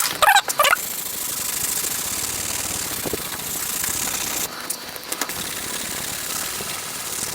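Steady scraping hiss of sandpaper being worked over a part of a mechanical keyboard, a light sanding. It is briefly interrupted a little past the middle.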